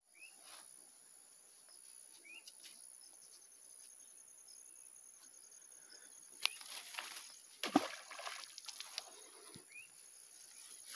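Quiet outdoor background with a few faint short high chirps. About two-thirds of the way through, a sharp click is followed by a couple of seconds of rustling and a dull knock, then a second knock near the end: handling noise as a magnet-fishing magnet is readied and thrown.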